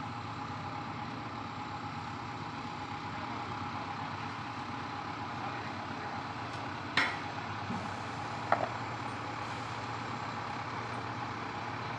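Mobile crane's diesel engine running steadily while hoisting a load, with a sharp knock about seven seconds in and a second, shorter one a second and a half later.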